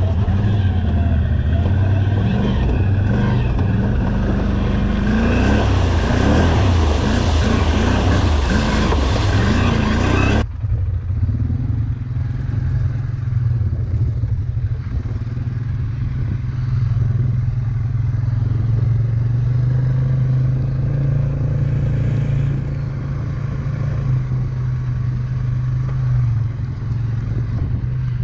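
ATV engine running, its pitch rising and falling for the first ten seconds or so. Then an abrupt change to a duller, steadier engine drone.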